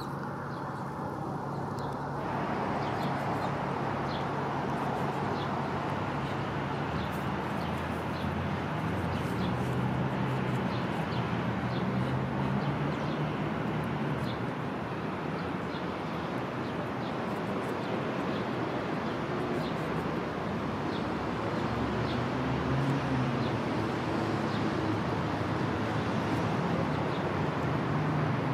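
Steady hum of distant road traffic, with faint short ticks scattered over it.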